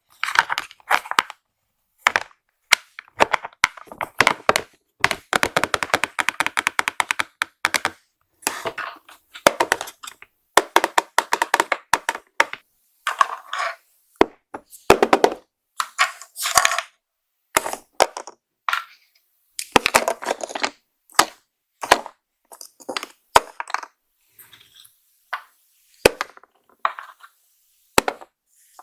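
Makeup products being unboxed by hand: plastic packaging and small cases handled, with many sharp clicks and short rustling stretches.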